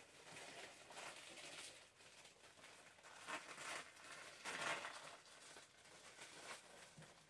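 Clear PVC dress rustling and crinkling as it is bunched and handled, in irregular surges, the loudest about four and a half seconds in.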